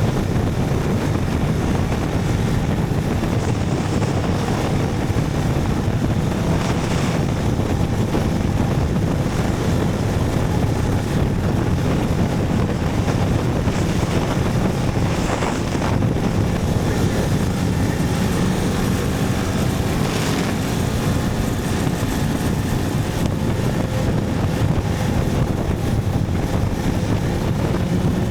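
Motorcycle running at a steady road speed, with wind rushing over the microphone; the engine note climbs a little near the end.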